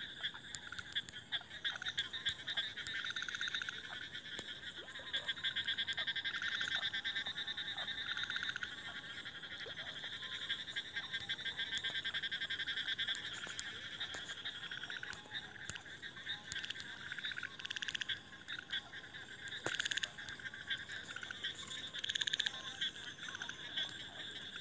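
Steady background chorus of frogs calling in rapid pulsing trills, with a few faint clicks near the end.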